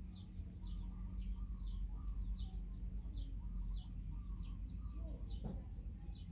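A bird repeating a short high chirp, about two to three a second, over a steady low rumble; a brief lower call slides in about five seconds in.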